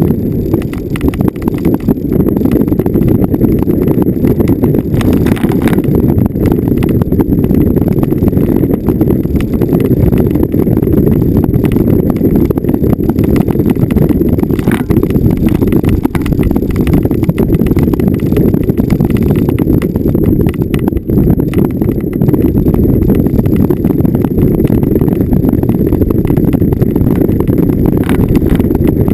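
A vehicle driving over rough off-road ground: a dense, deep, muffled rumble with constant fine rattling and jolting, steady throughout.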